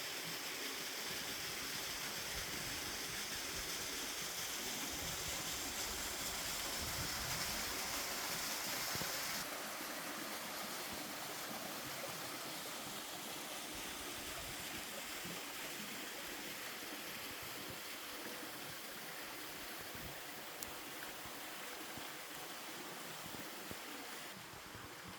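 Steady rushing of water at a waterfall in a mountain stream, the falls partly frozen into an ice fall. The brighter hiss of the water drops back about nine seconds in, leaving a softer, even rush.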